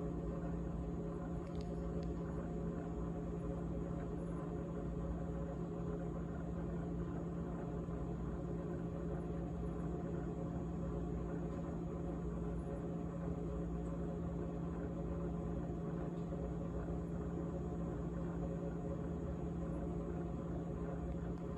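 GE GTH18XCTZRBB top-freezer refrigerator running, a steady hum with a rattle in it.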